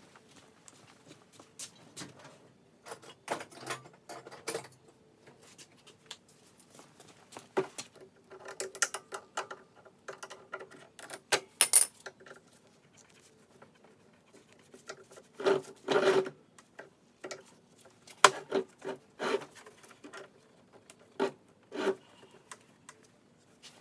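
Irregular clicks, taps and rubbing of hand tools and small parts being handled while a small-engine carburetor is worked on by hand, over a faint steady hum.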